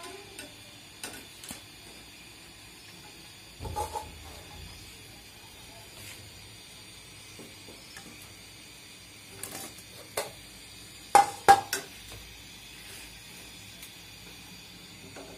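Metal kitchen utensils clinking and knocking against a karahi (wok-style frying pan) on a gas stove. The sharp clinks are scattered, with the loudest pair ringing briefly about eleven seconds in, over a faint steady hiss of oil frying.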